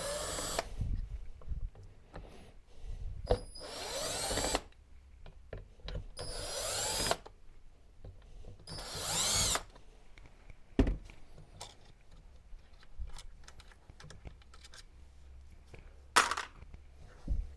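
Cordless drill-driver backing out four small T15 Torx screws from the heater's control-unit cover: four short bursts of motor whine a few seconds apart. Small clicks and knocks follow as the loosened parts are handled.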